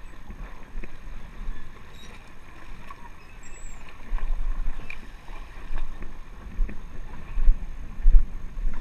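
Wind rumbling on a body-worn camera's microphone, gusting harder in the second half, with a few light knocks.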